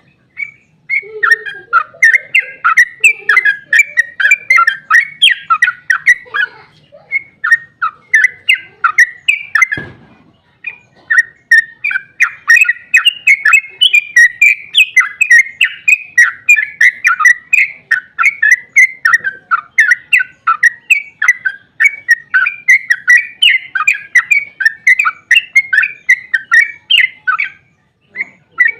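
Yellow-vented bulbul (trucukan) singing a long, rapid run of chattering notes, broken by a short pause about ten seconds in where there is a single dull thump, and briefly again near the end.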